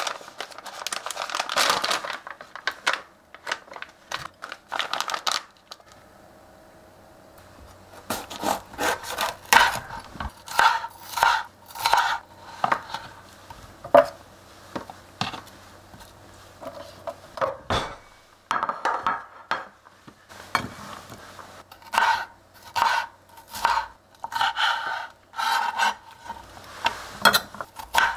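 Kitchen knife cutting bell peppers and cucumber on a cutting board: a long series of short, uneven knocks as the blade meets the board, in runs with brief pauses, mixed with the handling of vegetables in a stainless steel tray.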